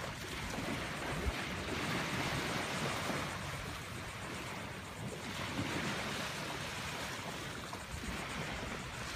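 Small waves washing onto a sandy beach, with wind on the microphone: a steady hiss that swells and eases every few seconds.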